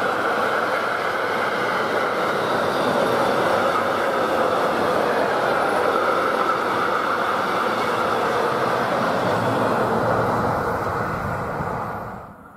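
Freight train of loaded double-deck car-carrier wagons rolling past, a steady rush and rumble of wheels on rail that dies away as the last wagons go by near the end.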